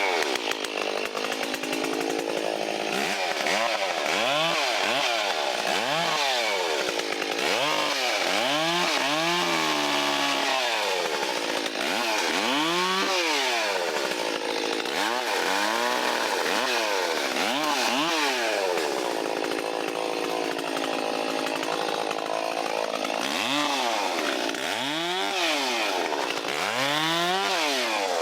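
Stihl 034 two-stroke chainsaw running, its engine speed rising and falling over and over, about every one to two seconds, as it limbs branches off a fallen tree.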